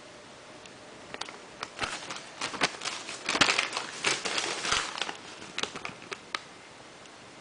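Paper being handled: a thin store receipt and the shoebox's tissue paper crinkling and rustling in a run of crackles, thickest in the middle and thinning out near the end.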